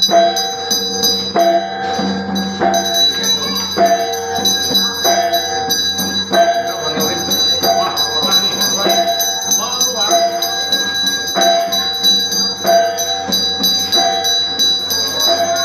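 Chinese temple ritual music with a steady beat of repeated notes, about three every two seconds, over the continuous high ringing of a small bell.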